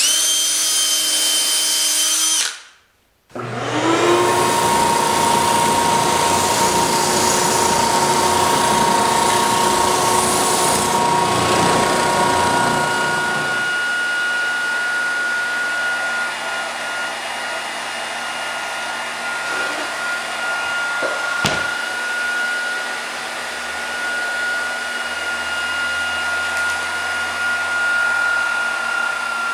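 After a brief stretch of another power tool, a Ridgid oscillating belt/spindle sander spins up and runs steadily while an expanded-PVC letter is sanded against its belt, stopping about halfway through. A heat gun then blows with a steady whine, softening the spray glue so the paper templates peel off the PVC letters, with one sharp click partway through.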